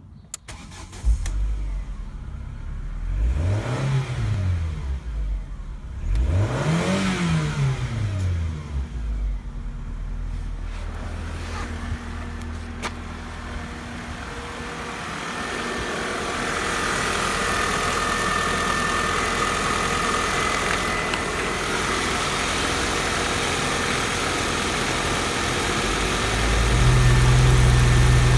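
Ford Mondeo Mk2 1.8i 16-valve Zetec (RKH) four-cylinder petrol engine starting about a second in, revved up and back down twice, then settling to a steady idle. Near the end it is heard up close in the engine bay and louder.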